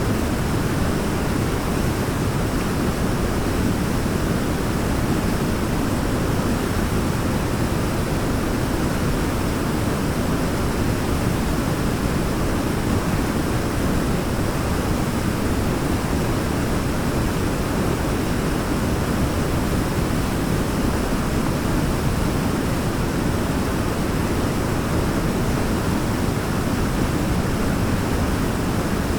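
Waterfall rushing: a steady, unbroken roar of falling water, deepest in the low range.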